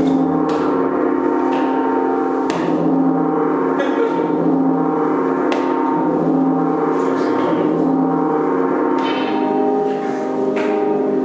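Sustained, gong-like ringing tones with a fresh strike every second or two, and the tones shift about nine seconds in: music samples from a motion-triggered sampler played over loudspeakers.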